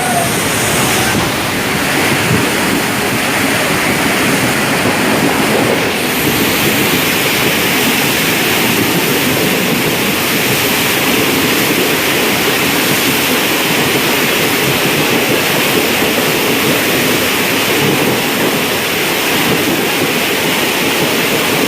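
A train speeding through floodwater over the tracks, throwing up water in a loud, steady rush of splashing.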